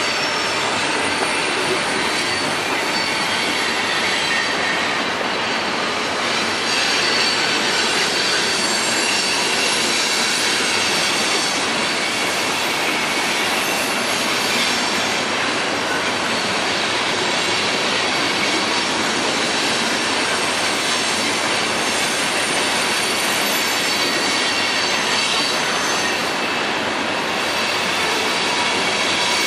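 Fully loaded CSX coal train's cars rolling past in a steady, loud stream, with thin high-pitched squeals from the steel wheels on the rails.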